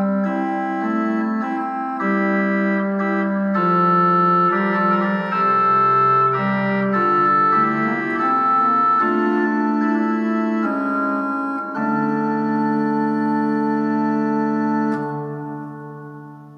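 Pipe organ playing a slow polyphonic early-Renaissance song setting in sustained notes. It closes on a chord held from about twelve seconds in, which is released about three seconds later and fades away.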